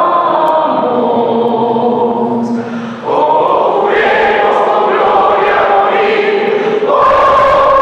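A group of voices singing together in long held notes, led by a woman and a man at microphones. A new sung phrase starts about three seconds in and another near the end.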